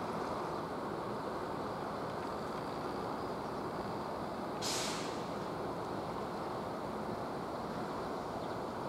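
Steady harbour background noise: an even, toneless rumble with no distinct machine note. About halfway through comes one short, sharp hiss lasting under half a second.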